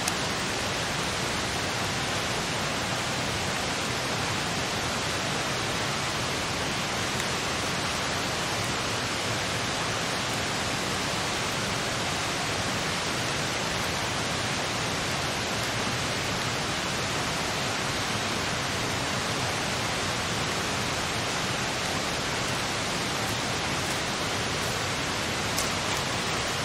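A steady, even rushing noise that does not change, with a faint click near the end.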